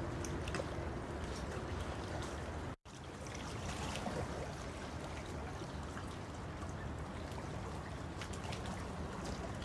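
Water splashing and trickling close to the camera as a hooked black bass churns at the surface. The sound cuts out completely for an instant about three seconds in.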